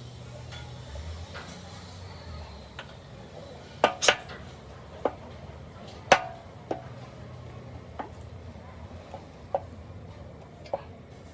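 Irregular sharp knocks of a hammer striking engine parts during an engine rebuild, about nine blows at uneven intervals from about four seconds in, each with a brief ring, over a low steady hum.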